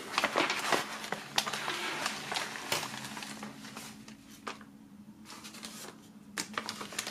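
A paper envelope being tipped and shaken out, its contents sliding and dropping onto a wooden table. There is rustling of paper and plastic sleeves with small knocks, busiest in the first few seconds, dying down in the middle and picking up again near the end.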